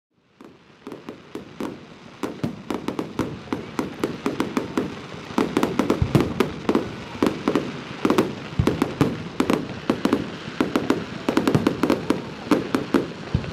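Fireworks going off: a rapid, dense run of sharp cracks and bangs, several a second, that builds in loudness from the start, with a few deeper booms among them.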